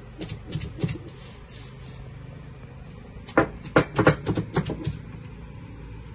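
Cylindrical stone roller knocking down on a flat grinding stone as it crushes a grated-coconut spice mixture by hand. There are three knocks near the start, then a quick run of about ten knocks about three seconds in.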